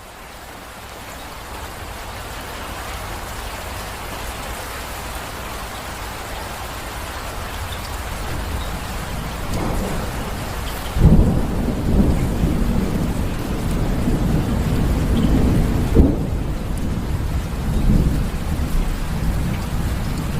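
Steady rain that fades in and builds through the first half, then thunder rumbling low under the rain from about halfway, with sharp claps about 11 and 16 seconds in.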